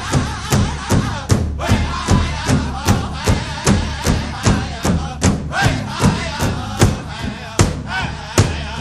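Background music with a steady drumbeat, about two and a half beats a second, under a melodic line that bends in pitch.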